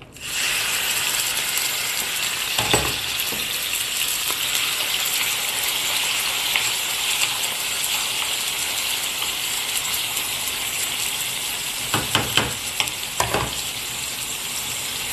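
Chicken pieces frying in oil in a pan, a steady sizzle. A utensil knocks against the pan once about a third of the way in and several times near the end, stirring the chicken.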